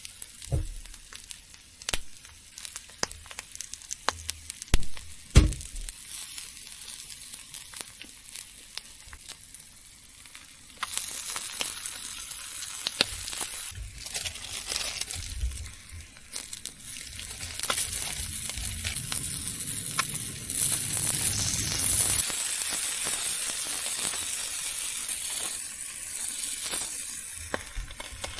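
Food sizzling in a hot pan, with sharp clicks and knocks of utensils. The sizzle jumps louder suddenly about a third of the way in and keeps on hissing.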